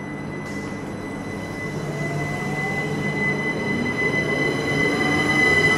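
Class 387 electric multiple unit pulling away from the platform. The traction whine rises in pitch as it gathers speed, over a steady high tone and rail noise, growing louder.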